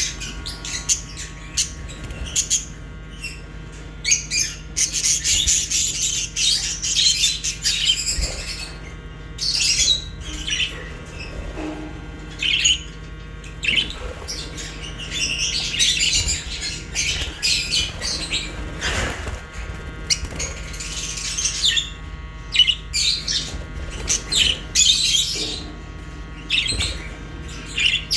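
Budgerigars and lovebirds chirping and squawking together, many short overlapping high-pitched calls in irregular bursts, over a steady low hum.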